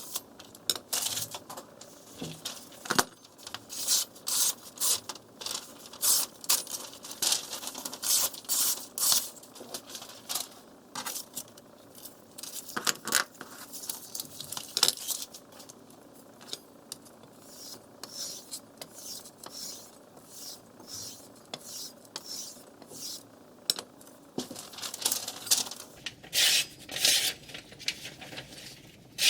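Steel knife blade being drawn by hand across a wet whetstone: a run of short scraping strokes, roughly one or two a second, sparser and quieter for several seconds past the middle.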